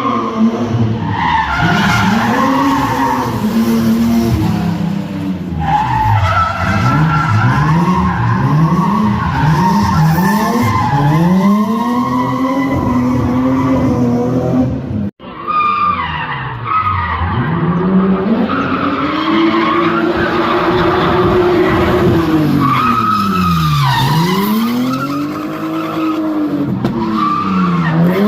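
Race car engine revved hard again and again, its pitch climbing and falling in long sweeps. It is cut off abruptly about halfway through, then picks up again.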